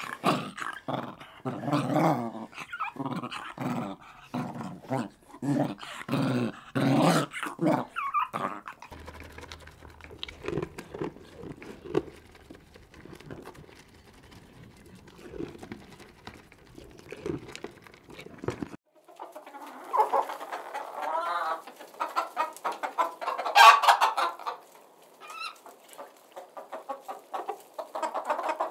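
A sequence of animal sounds: first a dog making rhythmic breathy vocal sounds, about two a second, for roughly eight seconds; then a quieter stretch of faint, scattered sounds; then, from about two-thirds of the way in, a hen clucking among peeping chicks, with one sharp loud call near the end.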